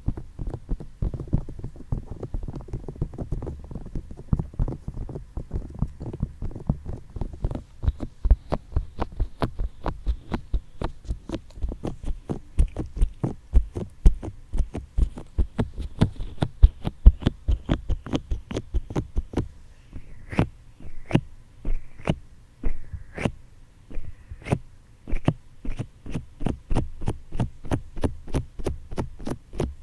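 Fingertips tapping on microphone ears for ASMR, a fast, even run of muffled taps about three or four a second over a low rumble. From about twenty seconds in, the taps come a little sparser and sharper.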